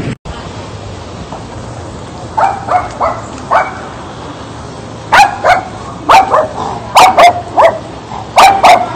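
A small dog barking: four softer short barks, then from about halfway on louder sharp barks coming in quick pairs and threes.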